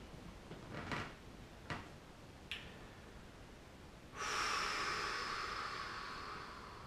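A man's long breath out through pursed lips while eating a superhot chilli pepper, starting about four seconds in and fading slowly over nearly three seconds. Before it, a few faint short mouth clicks.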